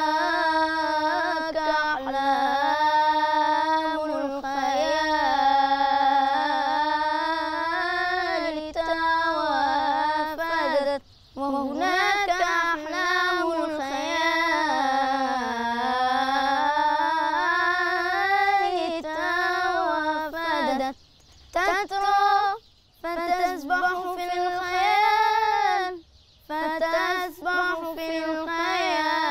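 A boy's unaccompanied voice singing an Egyptian Islamic religious chant (inshad), drawing out long ornamented notes that bend up and down, with several short breaks between phrases.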